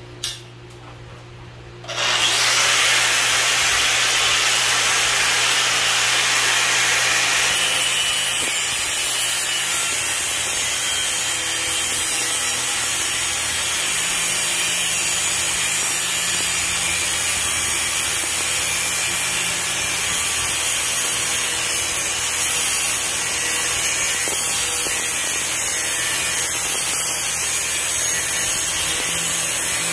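Angle grinder with an abrasive cut-off wheel starting up about two seconds in and running steadily as it cuts through a cast-iron drain pipe, throwing sparks.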